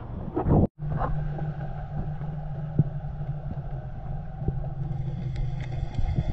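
Steady low motor hum heard underwater, with scattered sharp clicks through it.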